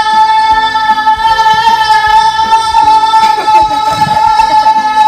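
Outro music: a singer holds one long high note, steady in pitch, over a backing track with regular low hits.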